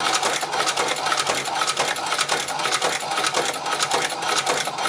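Hand-cranked Chinese shoe patcher sewing machine stitching leather, its mechanism clattering in a rapid, even run of clicks.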